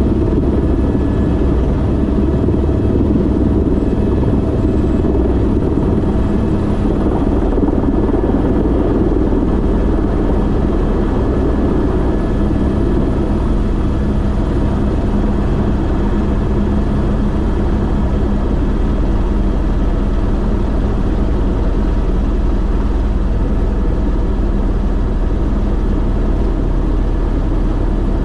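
Airbus H125 (AS350 B3e Esquilo) helicopter, its Arriel 2D turboshaft engine and rotor running steadily: a constant low drone with several steady tones held over it.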